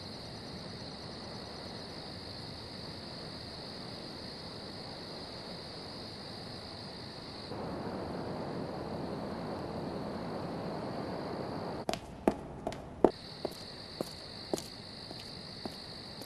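Crickets chirping in a steady high trill. About halfway through, a louder hiss comes in for about four seconds and stops, and then comes a run of sharp clicks and taps, two of them loud.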